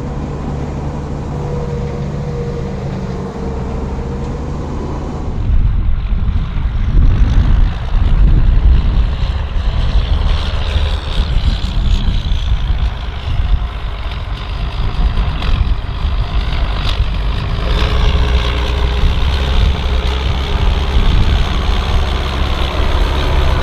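Ford TW tractor's diesel engine running steadily, then about five seconds in turning much louder and rougher with a heavy low rumble as it works under load on the plough, with buffeting gale-force wind on top.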